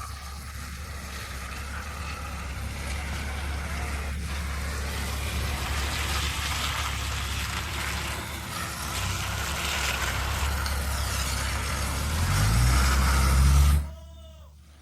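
A vehicle engine running steadily, then revving up with a rising pitch near the end before cutting off suddenly.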